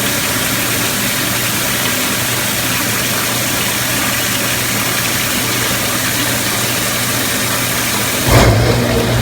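A dishwasher's recycling pre-wash unit filling its tank: steady rushing water over a low electric hum. About eight seconds in, its recirculating pump starts with a sudden louder surge as the tank reaches its level and water begins to spray.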